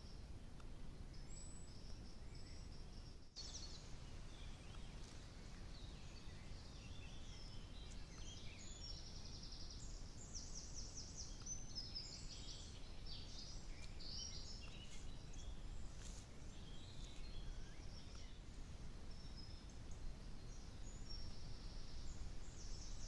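Small woodland birds calling and singing, with short high-pitched notes and rapid trills that are busiest in the middle, over a steady low background noise.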